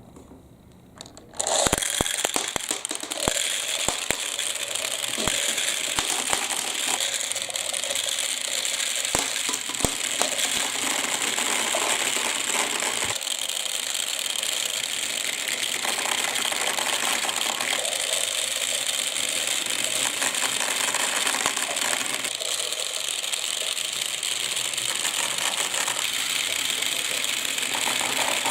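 Many balls rattling and clicking down a marble-run track with water running through it, starting suddenly about a second and a half in and going on as a dense clatter over a steady rush of water.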